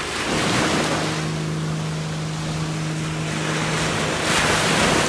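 Waves washing onto the beach, swelling twice, over the steady drone of a longtail boat's engine running.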